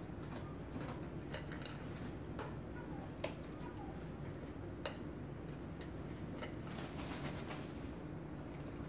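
Cat eating dry food from a stainless steel bowl: scattered sharp clicks and clinks of food and teeth against the metal, roughly one a second, with a quick run of them about seven seconds in, over a steady low hum.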